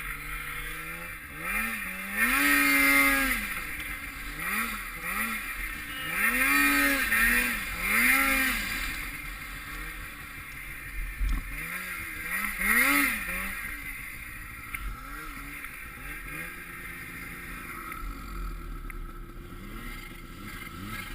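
Snowmobile engines revving up and down again and again, the pitch rising and falling in quick surges. The surges are loudest about two seconds in, again from six to eight seconds, and around thirteen seconds, then die down.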